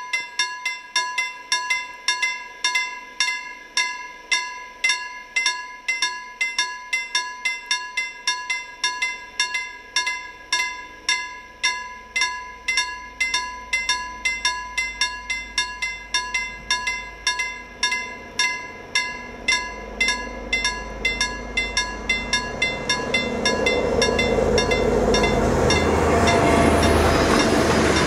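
Level-crossing warning bell ringing steadily, about two to three strikes a second. Over the last ten seconds the rumble of an approaching museum train, a Tk3 steam locomotive with a Dr13 diesel, grows louder until it drowns the bell as the train reaches the crossing.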